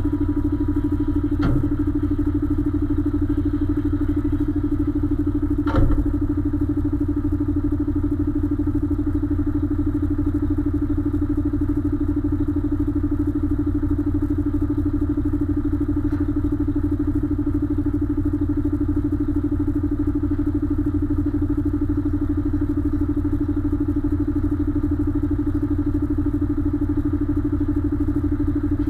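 Diesel engine of a container-truck prime mover idling steadily, heard close from the back of the cab. Two short knocks come about a second and a half and six seconds in.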